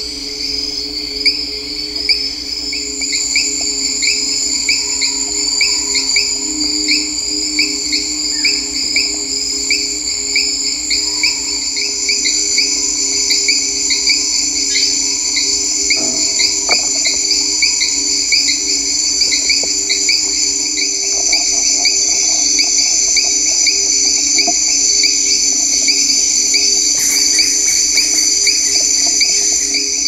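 Amazon rainforest insect chorus: several insects calling in steady high trills with a regular pulse, over a low steady hum, growing gradually louder.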